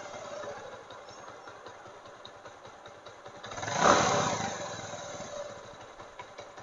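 Bajaj Avenger 220's single-cylinder DTS-i engine running at idle, with one short blip of the throttle about four seconds in. It has just been rebuilt with its scissor gear and balancer set right, and the mechanic judges its sound much better.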